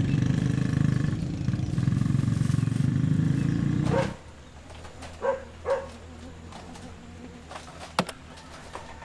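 Motor scooter engine idling steadily, then cut off abruptly about four seconds in. Quiet outdoor background follows, with two short chirps and a single sharp tick near the end.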